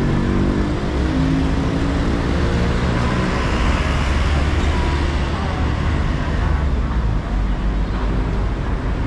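Busy city road traffic: a steady, loud rumble of passing vehicles.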